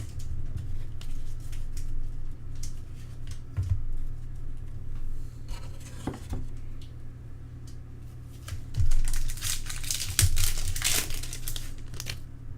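A trading-card pack wrapper being torn open and crinkled, with cards handled, louder in bursts near the end, over a steady low hum.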